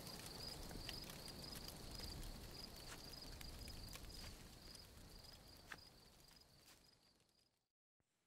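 Crickets chirping in a steady pulsing rhythm, about three chirps a second, with a few faint clicks; the chirping fades out near the end.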